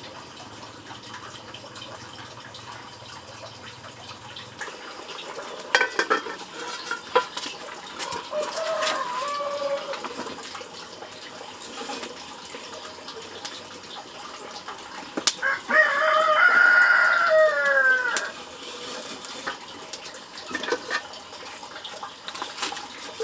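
A rooster crowing once, a long call of about three seconds that falls in pitch at the end, in the second half. Before it come a shorter fowl call and scattered light clicks and knocks.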